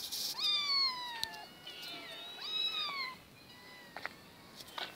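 Cat meowing: several drawn-out meows in the first three seconds, each sliding down in pitch, then quieter.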